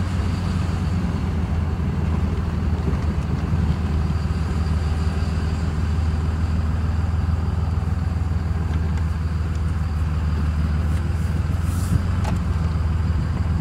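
5.9 L Cummins inline-six turbo-diesel of a 2005 Dodge Ram running at low road speed, heard from inside the cab as a steady low drone. It is running on a single-injection-event tune meant to give it a 12-valve character.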